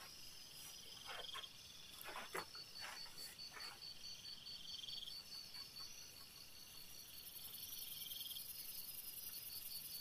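Night insects chirping: a steady, fast-pulsing high trill, with a second trill about a second long that comes back every three to four seconds. Faint rustling of cloth in the first few seconds.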